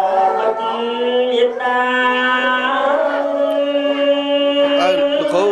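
Chanted singing in long, held notes, with a steadier low note sounding underneath, as in traditional Khmer wedding ceremony music.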